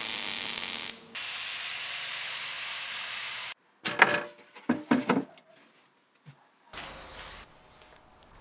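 Arc welding: the welding arc hisses steadily for about three and a half seconds, with a short break about a second in. Then come several brief knocks and clatters of handling, and a fainter hiss near the end.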